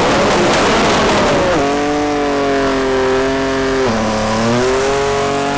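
Nissan GT-R's twin-turbo VR38 V6 at full throttle on a drag-strip run. It starts as loud rough noise, then settles into a strong engine note that climbs steadily, drops with a gear change about four seconds in, and climbs again.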